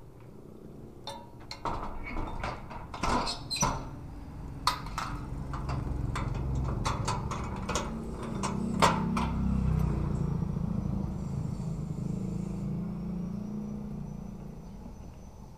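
Corrugated sheet-metal gate clanking and rattling as it is handled, with a run of sharp knocks over the first nine seconds, over a motor scooter's engine running low, which swells and then fades near the end.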